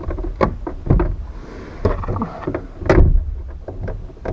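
Knocks and clatter of metal parts being worked on a Citroën 2CV's trunk lid catch, freeing the lock from inside the car. There are several separate sharp knocks, the loudest about three seconds in.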